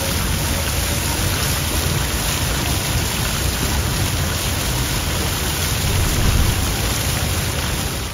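Public fountain's jets splashing steadily into its stone basin, a continuous rushing patter of falling water.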